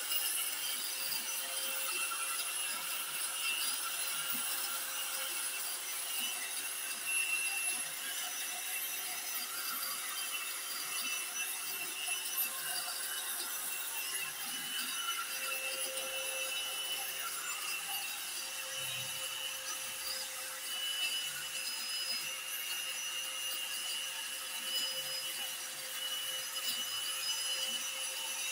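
Lure duplicating machine's small high-speed rotary cutter carving a wooden lure blank: a steady high whine over a rough cutting noise.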